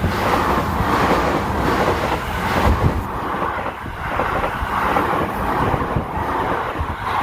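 Seibu Railway electric commuter train passing close by over a level crossing: a loud, steady rumble and rush of wheels on rails, with a few sharp knocks.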